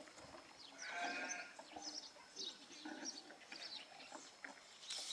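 A single wavering bleat from a sheep or goat about a second in, with faint short high chirps scattered around it.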